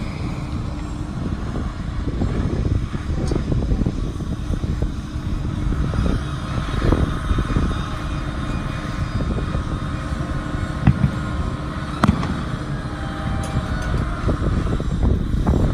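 Outdoor airport apron noise: wind buffeting the microphone in an uneven low rumble, over a steady hum and a thin whine from aircraft on the apron that comes in about five seconds in and fades near the end.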